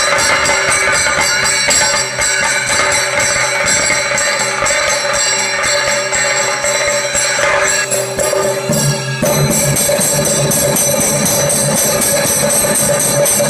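Chende drum ensemble beaten with sticks, a dense, loud, driving rhythm with the metallic ringing of small hand cymbals over it. About nine seconds in the sound changes abruptly, with more low drum weight, as another stretch of the drumming takes over.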